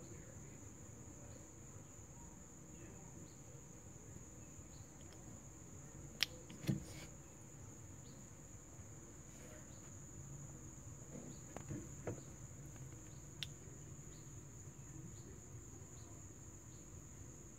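Steady high-pitched trill of insects singing. A couple of sharp clicks come about six seconds in, and a few fainter ones later.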